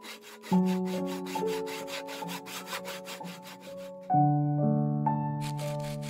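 Quick, even rasping strokes of a hand tool worked on wood, about five a second, over soft background music. The strokes stop for a moment about four seconds in, then start again.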